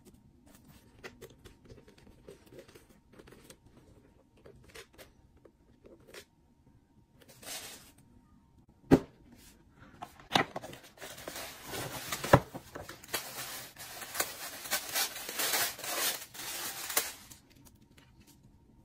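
Tissue paper crinkling and rustling for several seconds as it is pulled from a paper shopping bag, with sharp clicks from handling. Before that, only faint small clicks and taps.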